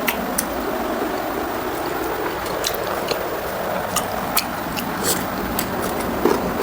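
Close-miked chewing and wet mouth sounds from eating pork ribs in gravy with rice, with scattered sharp smacks and clicks.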